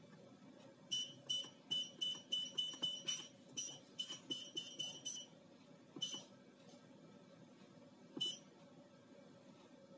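Short electronic beeps from a prop bomb's keypad as keys are pressed: a quick irregular run of about fourteen high beeps over the first half, then two single beeps later. A faint steady hum lies beneath.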